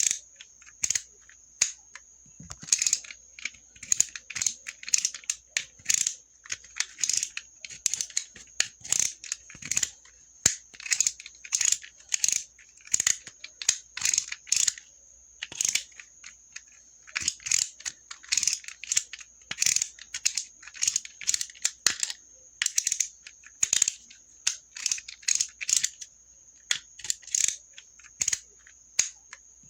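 Utility knife (box cutter) clicking and scratching: quick irregular runs of sharp clicks and short scraping strokes, several a second with brief pauses, over a faint steady high-pitched tone.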